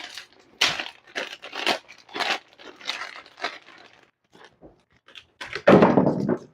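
Plastic packaging crinkling and tearing as it is handled and opened, in a run of short rustles with a louder burst of rustling near the end.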